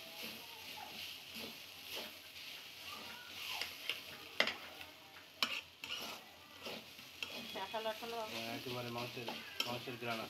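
Steel spatula stirring and scraping sliced onions frying in oil in a two-handled karahi, with steady sizzling and a few sharp knocks of the spatula against the pan about halfway through.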